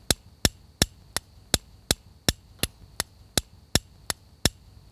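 Steel striker struck against a flint in quick, evenly spaced sharp clicks, about three strikes a second, to throw sparks.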